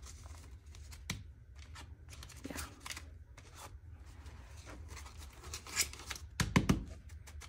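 Paper banknotes rustling and sliding as a stack of cash is handled and slipped into a slotted cash organizer, with scattered light clicks. Near the end there are several sharp taps and knocks as the stack is pushed straight in the organizer.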